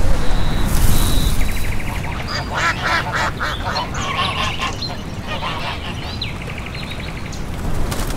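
Waterfowl calling at a pond: a run of rapid, repeated honking quacks from about two and a half to three and a half seconds in, with shorter bursts of calls before and after. A steady low rumble runs underneath.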